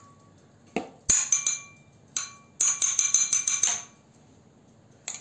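Wet bulgur being spread and patted by hand in a large metal tray: a series of quick sharp taps and scrapes against the metal, with a faint metallic ring. There are two clusters of taps, about a second in and in the middle, and one last tap near the end.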